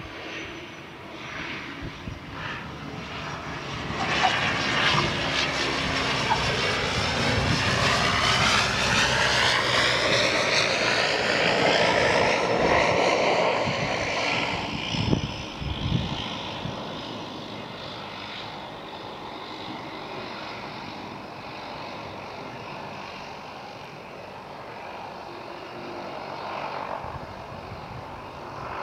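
De Havilland DHC-2 Mk III Turbo Beaver's Pratt & Whitney PT6A turboprop and propeller as the floatplane lands and rolls past. Its whine grows louder and slides down in pitch as it goes by, then settles to a quieter, steady sound.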